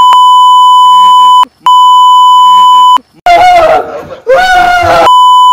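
Censor bleep: a loud, steady, high beep switched on and off sharply, masking speech. It runs for about the first three seconds with a short break halfway, gives way to about a second and a half of shouting, then comes back near the end.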